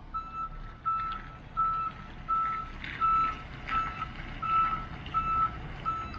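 Delivery truck's reverse alarm beeping evenly, about three beeps every two seconds, as the truck backs up, with its engine running low underneath.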